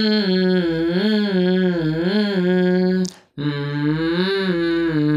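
A voice humming the slow, wavering opening melody of a Hindi bhajan, breaking off briefly about three seconds in and then going on.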